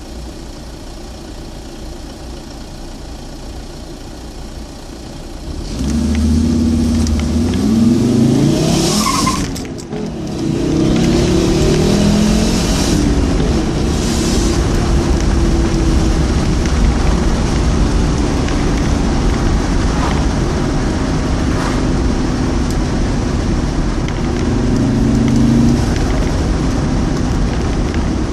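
Fiat Coupé 20V Turbo's turbocharged five-cylinder engine on its stock exhaust. It runs quietly for the first few seconds, gets louder from about six seconds in with its pitch climbing as it accelerates, gives a brief hiss around nine seconds, then runs steadily.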